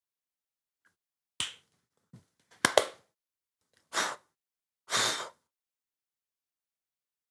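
Fingers snapped sharply about six times over some four seconds, at uneven intervals, as the cue to bring a hypnotised person out of trance.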